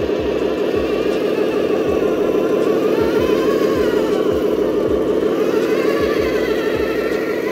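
A 1/14-scale remote-control Scania R620 truck driving, a steady engine-like drone with a higher whine that rises and falls in pitch twice.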